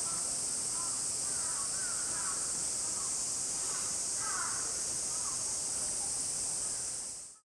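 Steady high-pitched chorus of cicadas, with short rough bird calls over it several times; it cuts off abruptly near the end.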